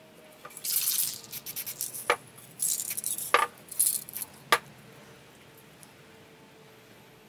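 Aerosol spray paint can hissing in several short bursts, with three sharp, briefly ringing clicks among them; after about four and a half seconds only a low background remains.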